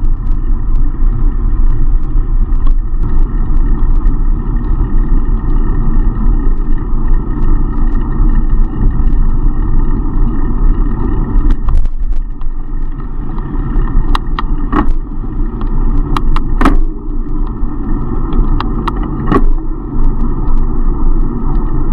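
Steady loud rumble of riding a bicycle along a road, the road noise and rushing air picked up by a bike-mounted action camera. It is broken by a handful of sharp clicks between about 14 and 19 seconds in.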